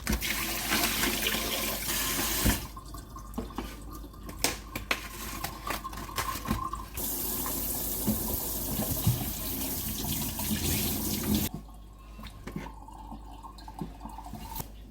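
Kitchen tap running into a sink in two spells, a short one at the start and a longer one of several seconds past the middle, with light clinks and knocks in between.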